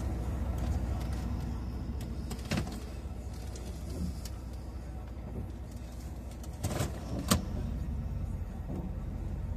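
Chevrolet Camaro Z28 engine idling steadily, heard from inside the cabin as a low rumble. A sharp click sounds about two and a half seconds in, and two more come close together a few seconds later.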